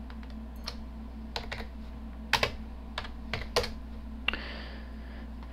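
Typing on a computer keyboard: about a dozen separate key presses at an irregular pace as a short shell command is entered, over a steady low hum.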